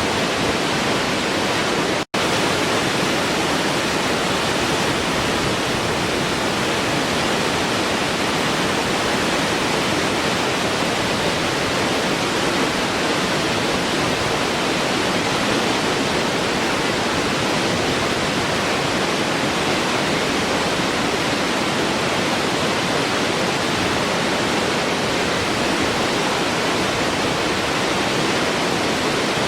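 Waterfall rushing in a steady, even hiss, with a split-second dropout about two seconds in.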